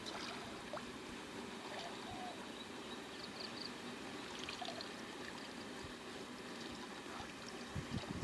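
Water running steadily, like a trickling stream, with a few faint high chirps now and then.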